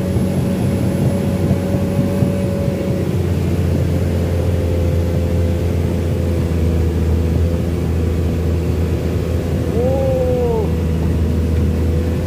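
Komatsu PC 210 excavator's diesel engine and hydraulics running steadily, heard from the cab. The low engine hum grows heavier about three seconds in, and a short rising-then-falling whine comes about ten seconds in.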